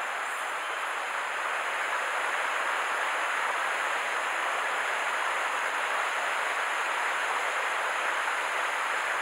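Steady rush of a shallow mountain stream running over stones and riffles.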